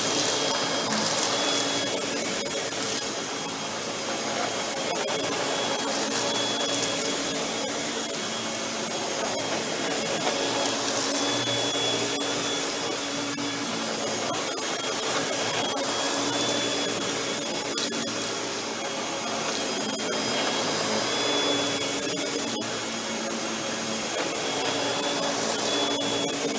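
Hoover WindTunnel Anniversary Edition canister vacuum (model S3755) running on its highest speed with the power brush on. Its steady motor noise swells and eases every few seconds.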